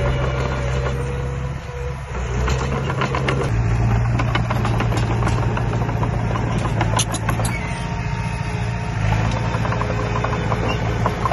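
Construction machine's engine running steadily, with scattered clanks and knocks, a cluster of them about seven seconds in.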